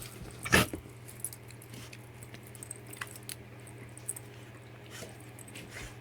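A dog at play: one short loud sound about half a second in, then scattered light clicks and jingles, over a steady low hum.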